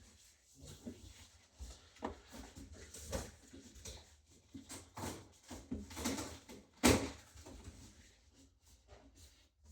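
Unpacking a boxed electric scooter: irregular rustling and handling knocks of packaging and parts, with a sharper, louder knock about seven seconds in.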